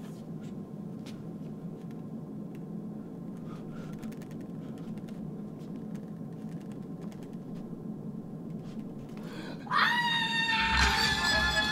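A steady low hum, then near the end a sudden loud horror jump-scare sting: a high shriek that slides slightly down in pitch, joined a moment later by a deep rumble and layered string-like tones.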